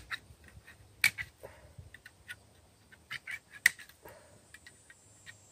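A knife being tapped through a tin can's lid with a baton to cut it open: a few sharp clicks, the two loudest about a second in and a little after three and a half seconds, with fainter ticks between.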